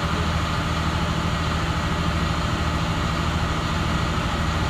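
Navistar MaxForce DT diesel engine running steadily at idle during a forced DPF regeneration. Its particulate filter is suspected to be clogged.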